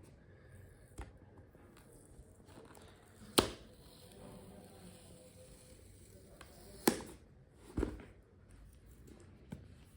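Handling of a boxed keyboard and its packaging: a few scattered sharp knocks and clicks, the loudest about three and a half and seven seconds in, with faint rustling between.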